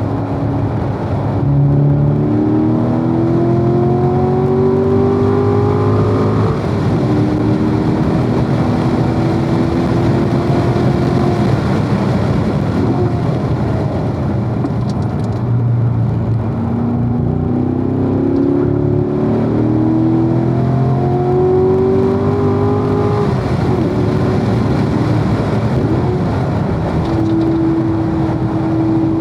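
Corvette engine heard from inside the car at speed on a race track, pulling hard with its pitch rising until a gear change drops it about six seconds in, then running steadier. It climbs again with another shift a little past twenty seconds, over constant wind and road noise.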